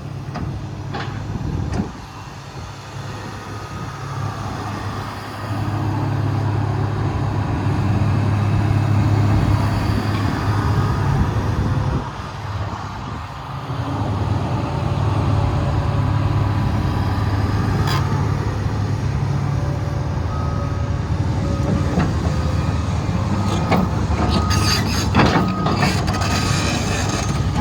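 Komatsu PC300LC-8 track excavator's six-cylinder diesel engine running steadily. It grows louder about five seconds in, dips briefly around the middle, and there are a few knocks and clanks near the end.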